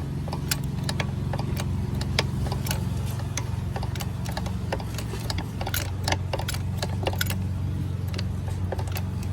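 Jack-driven press working a propeller hub out, heard as many light, irregular metallic clicks and ticks over a steady low hum.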